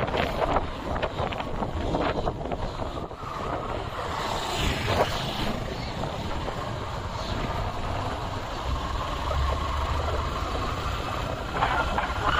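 Wind buffeting the microphone on a moving vehicle, with a steady motor rumble underneath.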